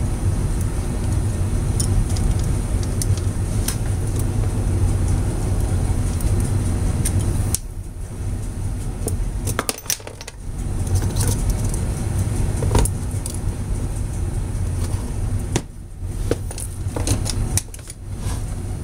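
Steady low rumble in the background, with small scattered clicks and rattles of wires and a metal helping-hands clamp being handled on a workbench.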